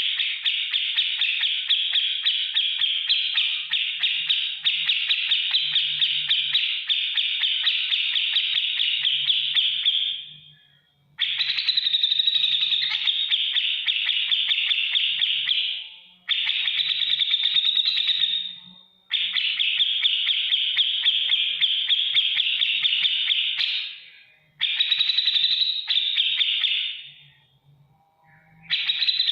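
Cucak jenggot (grey-cheeked bulbul) singing in long, rapid, rasping chatters, in the 'beset ngetik' style. The first bout runs about ten seconds, followed by several shorter bouts of two to five seconds, each separated by a brief pause.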